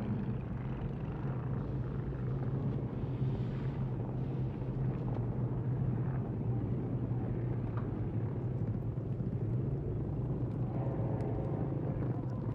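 Many vehicle engines heard from afar, cars and motorcycles circling together in one steady, unbroken low drone.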